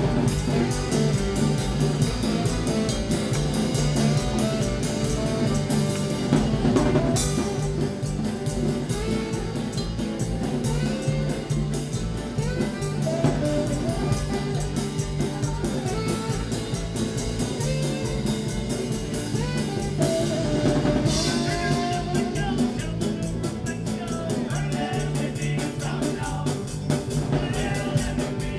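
Live band playing a jam: a drum kit keeps a steady beat under guitar and saxophone.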